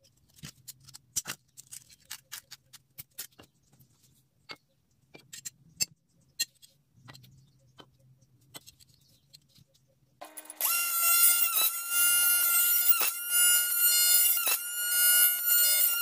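Light clicks and taps of aluminium soda-can ends being handled, then about ten seconds in a small bench drill press starts with a loud, steady whine. The whine sags briefly and recovers about every second and a half.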